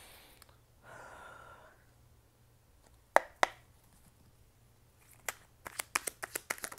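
Tarot cards being handled and drawn from the deck: a soft rustle about a second in, two sharp snaps a little after three seconds, then a quick run of clicks and snaps near the end.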